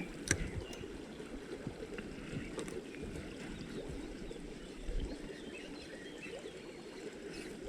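Small stream running over stones, a steady rush of water, with a sharp click about a third of a second in.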